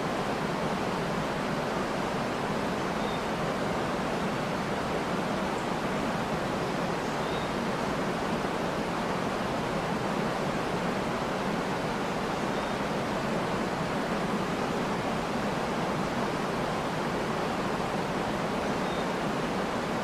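Wide, low river waterfall: water rushing steadily over the ledge and churning below it.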